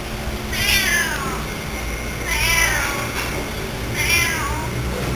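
A cat meowing three times, about a second and a half apart, each meow falling in pitch.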